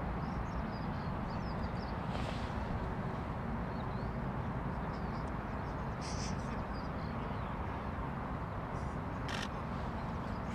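Outdoor ambience: a steady low rumble with faint bird chirps, and a few short, sharper calls about two, six and nine seconds in.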